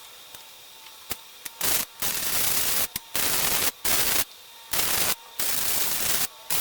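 MIG welder laying a series of short welds: about six bursts of crackling arc noise, each under a second, with brief pauses between them.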